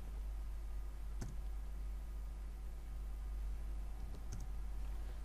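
Computer keyboard keystrokes: a single key press about a second in, then two quick clicks about four seconds in, over a steady low hum.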